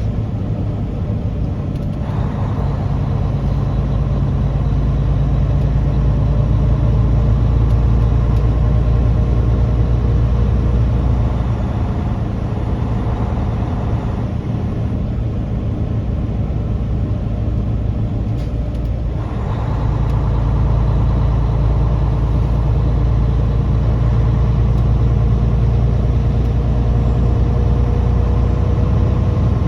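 Heavy truck engine running steadily while driving, with road noise. The engine eases off for a few seconds around the middle, then pulls harder again.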